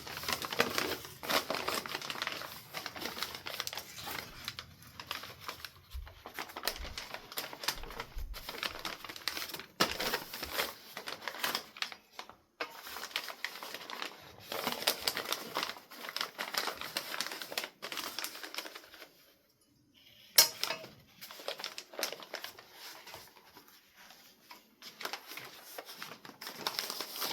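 Wrapping material crinkling and rustling, with many small clicks and taps, as ceiling fan blades are wrapped up by hand; one sharp click about twenty seconds in.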